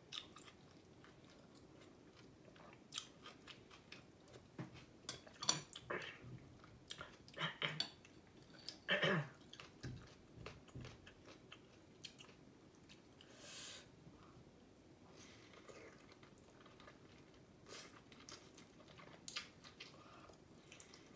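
Close-up eating sounds: a person chewing and gnawing meat off a bone from a bowl of beef noodle soup, with scattered wet mouth clicks and smacks. The smacks are loudest from about five to nine seconds in.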